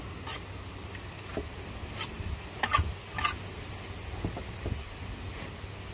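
Steel brick trowel clinking and scraping against bricks and mortar as a brick course is laid: a run of short sharp clicks, closest together about two to three seconds in, then a few softer knocks, over a low steady hum.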